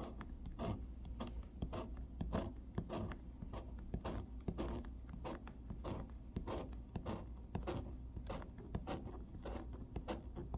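Rapid, irregular scraping strokes as the coating is scratched off a lottery scratch-off ticket.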